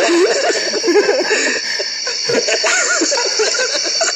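Several people giggling and laughing in short, wavering bursts, over a steady high-pitched whine.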